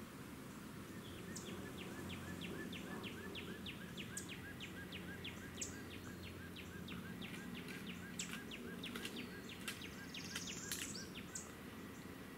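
A high chirping call repeating about three times a second for some ten seconds, over a steady low background hum. A few sharp ticks come near the end.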